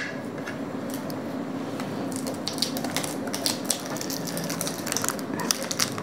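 Forks and spoons clicking and scraping against plates and paper pastry cases as two people cut into cream pastries. The light clicks come scattered at first and get busier about two and a half seconds in.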